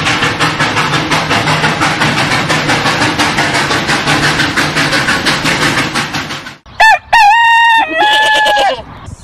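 Steam-train chugging sound effect, a fast, even clatter of beats that stops about six and a half seconds in. A rooster's cock-a-doodle-doo crow follows, the loudest sound here, long and held with a falling end.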